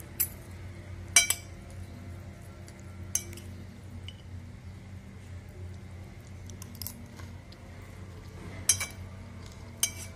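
Metal spoon clinking against a plate while scooping a chanachur mix, a handful of separate sharp clinks with a long gap in the middle. A low steady hum runs underneath.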